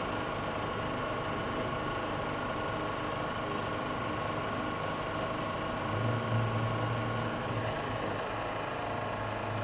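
Pressure washer running with a steady mechanical hum while its jet sprays water onto a marble statue, cleaning it.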